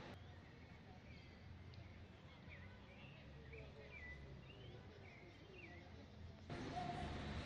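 Birds chirping: a scatter of short, sweeping calls over a faint low outdoor rumble. The background noise jumps louder about six and a half seconds in.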